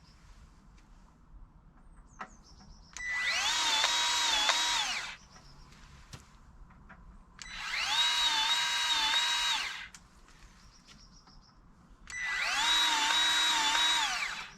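Milwaukee M12 cordless grease gun's motor running in three bursts of about two seconds each, the pitch rising as it starts, dipping slightly in the middle and falling as it stops: pumping grease into the plough's grease points.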